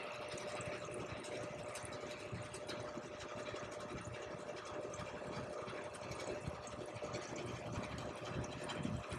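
Air conditioning unit running: a steady mechanical hum with a constant tone and fan-like rushing noise.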